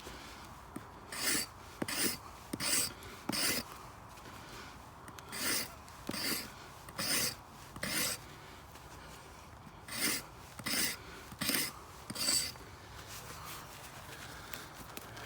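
Origin Bushcrafter hatchet blade shaving a wooden axe handle, each short stroke a dry scraping rasp. The strokes come in runs of two to four with short pauses between.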